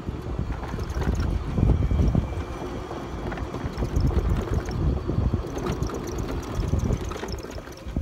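Wind buffeting the microphone on a moving golf cart, a gusty low rumble over the cart's running and rolling noise.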